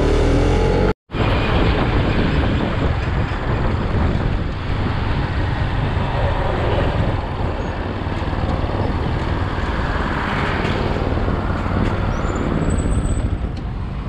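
Motorcycle riding at road speed: a steady rush of wind on the microphone over engine and road rumble, with passing traffic. The sound cuts out for a moment about a second in.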